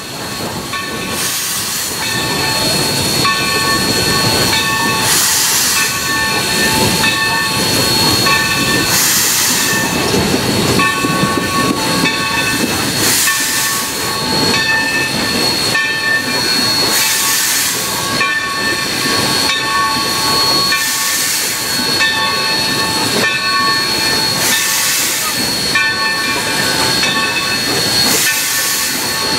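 Cab sound of a Mikado (2-8-2) steam locomotive rolling slowly: a steady hiss of steam with several steady high tones, and a louder rush of exhaust every few seconds.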